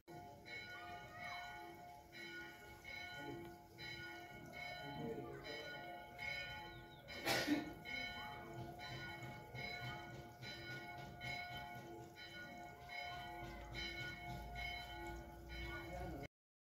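Church bells ringing a steady peal, a stroke a little more than once a second, each note ringing on into the next. A single sharp knock, the loudest sound, falls about seven seconds in.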